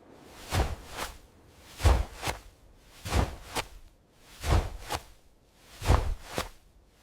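Footsteps on loose sand at a slow walking pace: five steps about 1.3 seconds apart, each a soft two-part crunch of grains shifting underfoot.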